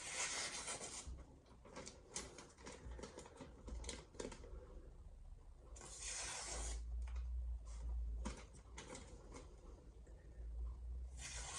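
VG10 santoku knife, freshly edged on a 500-grit stone, slicing through paper as a sharpness test: two longer rustling hisses, at the very start and about six seconds in, among lighter rustles and small taps.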